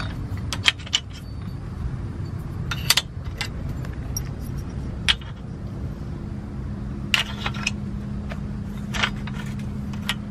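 Metal parts of a roller-furler's aluminium foil being handled: a handful of light metallic clinks and taps, one small cluster about three seconds in. A steady low hum runs underneath.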